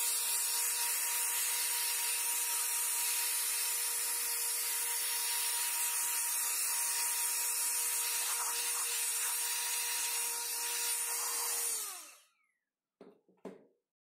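Small handheld electric air duster running steadily, its motor giving a steady whine under the rush of air as it blows dust off a laptop keyboard. About twelve seconds in it is switched off and the motor winds down. Near the end there are two light knocks as the keyboard is set into the laptop.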